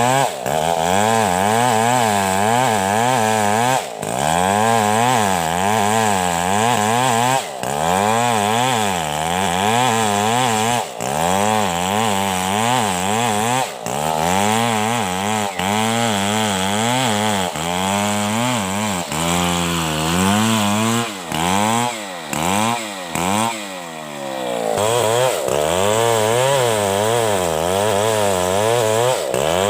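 Stihl 070 two-stroke chainsaw cutting through a coconut palm trunk, its engine pitch wavering up and down under load. It drops off briefly every few seconds, and its revs fall and climb again about twenty seconds in.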